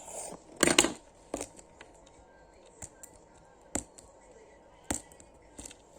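Small objects being handled: a short burst of rustling and clicking just under a second in, then single sharp clicks every second or so.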